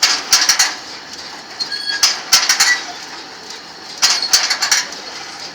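Jean Tinguely's Heureka scrap-metal kinetic sculpture running: its moving metal parts scrape and clatter in a repeating cycle, a burst of rattling about every two seconds, with a few short squeaks between.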